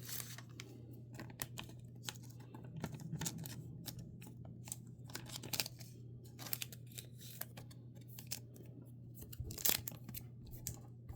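Trading cards and their paper and plastic packaging being handled and sorted by hand: a string of small clicks, slides and rustles, with one louder snap near the end. A low steady hum sits underneath.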